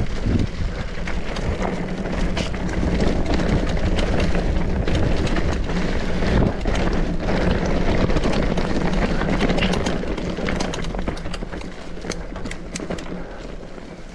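Norco Torrent hardtail mountain bike ridden fast over rough trail: the tyres rumble and wind rushes over the microphone, with rattles and clicks from the bike. The rush eases off over the last few seconds as the bike slows, leaving sharper clicks and rattles.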